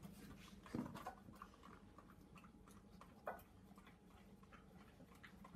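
A dog missing much of her lower jaw eating kibble from a plate on a tile floor: faint scattered clicks and licking as she works the food with her tongue. Two louder knocks come about a second in and just past three seconds.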